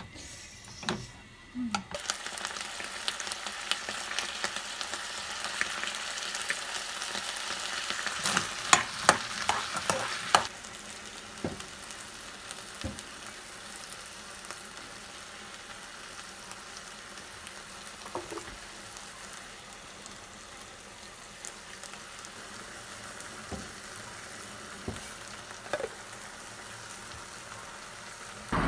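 Squid, garlic and onion sizzling as they are stir-fried in a nonstick frying pan, with a utensil clacking and scraping against the pan. The sizzle starts about two seconds in, is loudest with a flurry of clacks around nine to ten seconds in, then settles to a quieter steady sizzle.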